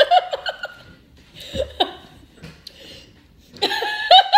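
People laughing: a short burst of giggling at the start, a brief laugh a little before two seconds in, and a louder run of pulsing laughter near the end.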